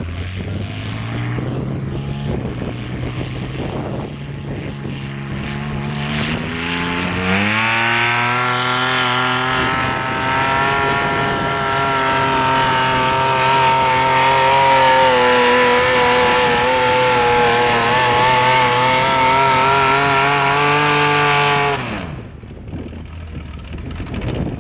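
Modified garden pulling tractor's engine, breathing through tall twin open exhaust stacks, working under load as it drags a weight-transfer sled. It runs lower at first, revs up about seven seconds in and holds a high, steady pitch, then cuts off suddenly a couple of seconds before the end.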